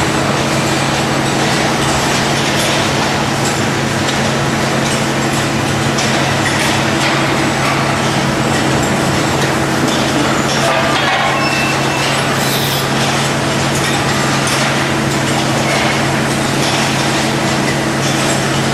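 Steady factory machinery noise: a constant low hum with a loud hiss over it, and a few brief higher whines about ten to twelve seconds in.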